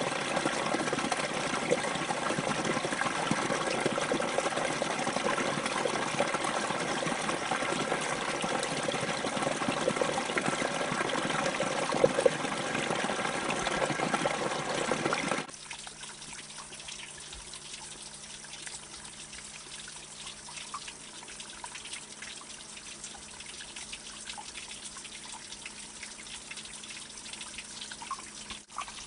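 Steady rush of flowing water. It breaks off abruptly about halfway through into a much quieter trickle with scattered small drips.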